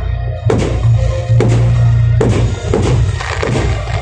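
Aerial firework shells bursting, several sharp bangs with echoing tails at uneven intervals, over loud music with heavy bass.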